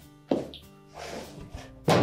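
Two thunks as a dryer's lower access panel is knocked into place against the cabinet, the second near the end louder than the first, over soft background music.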